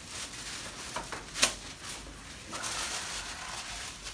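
Handling noise on a chiropractic drop table as a person gets into position: a couple of soft knocks, a single sharp click about a second and a half in, then rustling.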